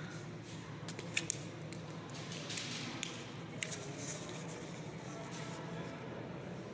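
Quiet background ambience: a steady low hum with a few scattered, sharp clicks and scuffs at irregular intervals.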